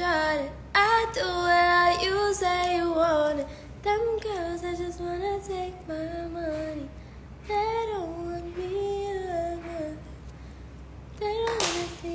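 A woman singing a slow melody unaccompanied, in several phrases of long held notes separated by short breaks.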